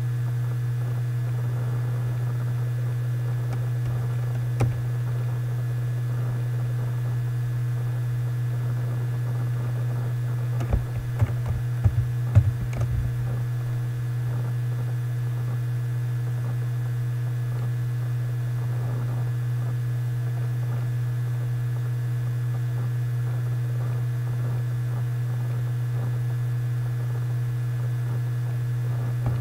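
Steady low electrical hum, mains hum in the recording. Over it come a single click about five seconds in and a short run of clicks at the computer around eleven to thirteen seconds in.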